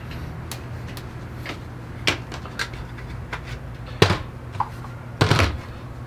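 Scattered clicks and knocks of the hard plastic body and attachments of a Dyson V7 handheld vacuum being handled and set down on a countertop. The loudest knock comes about four seconds in, with another heavier knock a second later, over a steady low hum.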